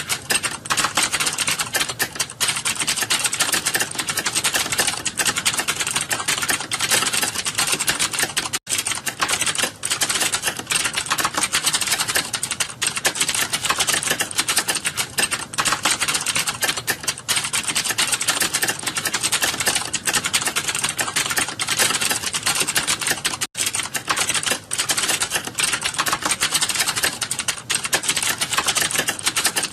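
Computer keyboard typed fast and continuously, a dense, steady stream of key clicks during a timed typing test, with two split-second breaks, about a third and four-fifths of the way through.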